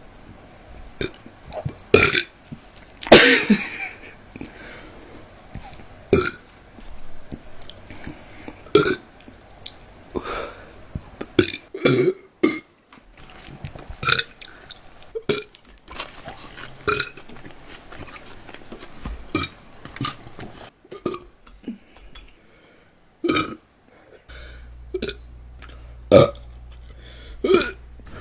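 A young woman burping over and over: more than a dozen loud burps, mostly short, coming about every one to two seconds, with one longer, drawn-out burp about three seconds in.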